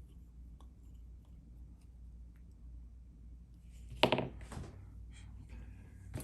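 Small metal parts of a disassembled pin-tumbler lock being handled: faint light clicks, then a loud sharp knock about four seconds in and another click near the end.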